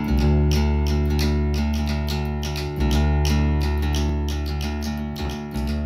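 Outro music: a guitar instrumental with a steady bass line under quick, evenly repeated plucked notes, slowly getting quieter as it fades out.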